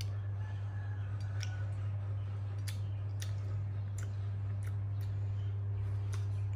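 Scattered soft clicks, about ten over the span, irregularly spaced, over a steady low hum.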